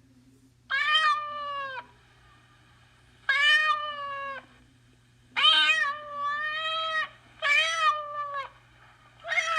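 Domestic cat meowing: five drawn-out meows, each about a second long, one every two seconds or so.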